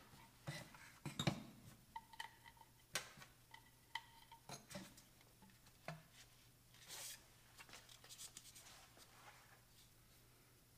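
Faint handling noises of rubber hoses and plastic fittings being pushed together on an oil catch can kit: scattered light clicks and taps, two short squeaks, and a brief rubbing sound about seven seconds in.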